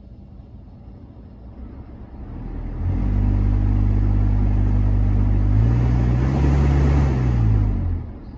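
BMW F11's cabin blower fan making an abnormal low droning hum. It sets in about three seconds in, a higher hum joins about halfway through, and it stops shortly before the end.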